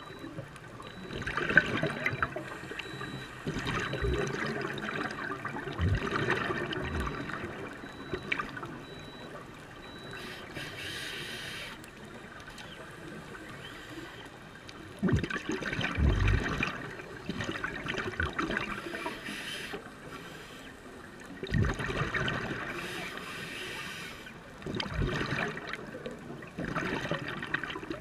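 Scuba diver breathing through a regulator underwater: exhaled air bubbles out in gurgling bursts of a few seconds each, every several seconds, with shorter hisses of inhalation between some of them.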